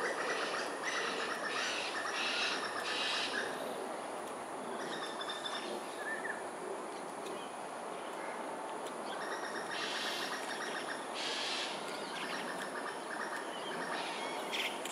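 Crows calling in quick runs of several short, rasping caws with pauses between runs, as they mob a grey-headed fish eagle. A steady high hiss runs underneath.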